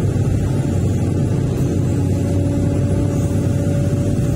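Hydraulic excavator's diesel engine running steadily under load as the boom and bucket dig at a tree base, heard from inside the cab as an even drone with a faint hum above it.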